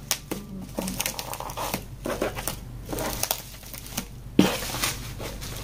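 Bubble wrap being pulled off a boxed gift and crumpled: irregular crinkling and crackling with many short sharp clicks, and one louder snap about four and a half seconds in.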